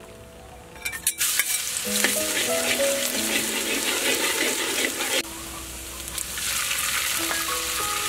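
Chopped garlic hitting hot oil in an iron wok and sizzling loudly from about a second in, stirred with a metal ladle, the hiss steady and dropping a little about five seconds in. Soft background music runs underneath.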